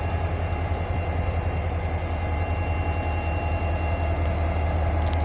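Diesel locomotive engine running steadily with a low, even rumble.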